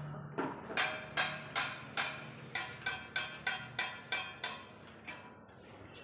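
Hammer blows on metal, about a dozen ringing strikes at two to three a second, stopping about five seconds in.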